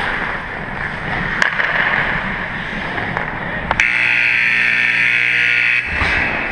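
Ice rink scoreboard horn sounding one steady, buzzy tone for about two seconds, starting about four seconds in: the end-of-game horn as the clock runs out. Before it, rushing skate and air noise on a player-worn camera, with a few sharp clicks.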